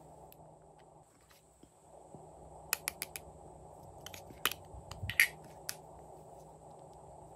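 Sharp plastic clicks and snaps from a small stacking plastic cosmetic container being handled and pulled apart: a quick run of about four clicks near three seconds in, then a louder cluster around five seconds.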